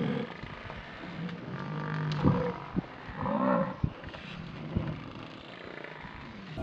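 Lions growling and snarling in short bouts, with several sharp knocks in between.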